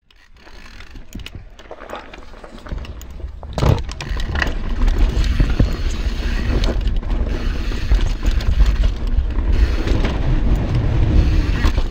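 Downhill mountain bike (YT Tues) rolling fast down a dirt trail: rumbling tyre and wind noise on the action camera with scattered knocks and rattles from the bike over bumps. It builds from quiet to loud over the first few seconds as speed picks up.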